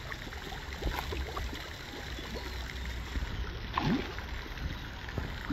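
Light splashing and trickling of water in a trout pond where fish are rising to feed, with a steady low wind rumble on the microphone and scattered small ticks.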